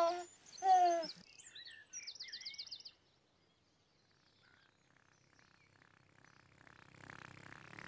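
A baby's short falling vocal sound in the first second, then bird chirps and a rapid high trill. After a near-silent pause, soft music fades in near the end.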